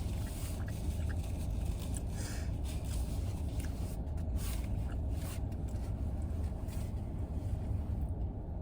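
Steady low hum of an idling car heard from inside the cabin, with short rustles and crunches of a sandwich being eaten and its wrapper handled every second or so.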